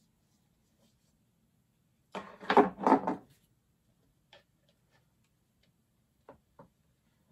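Hard plastic toy parts knocking and clicking against a hollow plastic Mr. Potato Head body as pieces are handled and pushed into its holes. A loud cluster of knocks comes about two seconds in, followed by a few faint single clicks.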